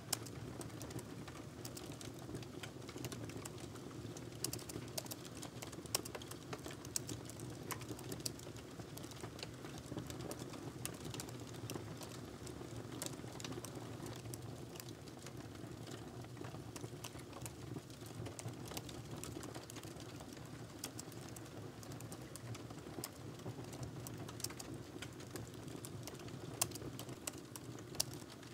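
Fingers typing steadily on a laptop keyboard: a quick, irregular run of soft key clicks, over a steady low background hum.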